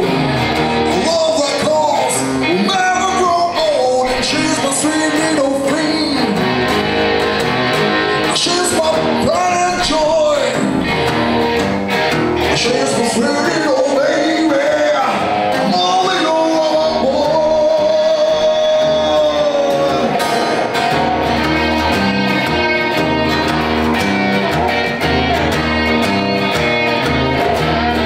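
A live rock band playing a rock and roll number, with guitar and singing over a steady low end.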